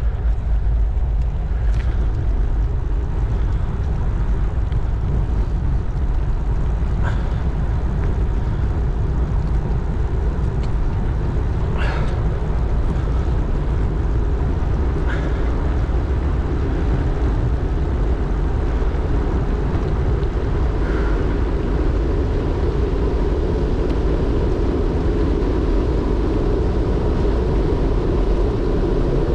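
Steady wind rush on the microphone mixed with tyre noise on a rough chip-seal road while moving along at speed, with a few faint ticks scattered through.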